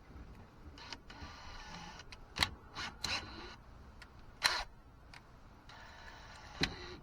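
Power drill running in two short bursts while drilling out a broken starter bolt, with sharp clicks and knocks of metal tools in between.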